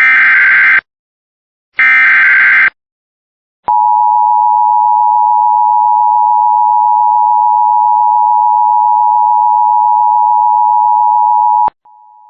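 Emergency Alert System broadcast: the last two SAME header data bursts, harsh warbling screeches about a second long and a second apart, then the EAS two-tone attention signal. The attention signal is a loud steady tone held for about eight seconds that announces the severe thunderstorm warning. It cuts off and a much quieter steady tone follows near the end.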